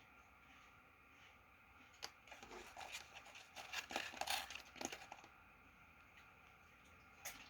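Snack packaging crinkling and tearing for about three seconds, loudest around the middle, followed by a single short click near the end.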